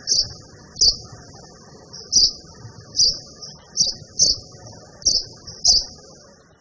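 A small bird chirping over and over: short, high chirps about once a second, over a faint low background rumble.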